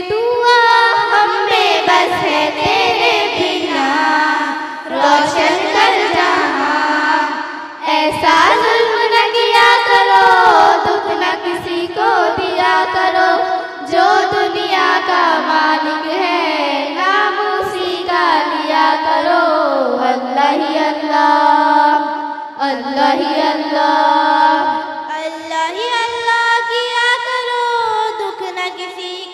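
Girls' voices singing a slow devotional melody through a PA, with long held notes that glide and bend between pitches.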